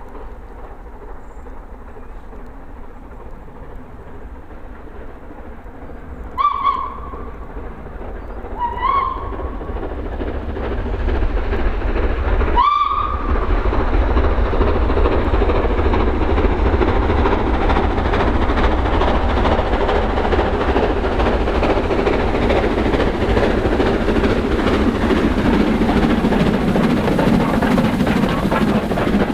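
Steam locomotive, the LNER K4 'The Great Marquess', sounds three short whistle blasts as it comes through a tunnel; the last blast is the loudest. The noise of the engine working past then builds about ten seconds in and stays loud.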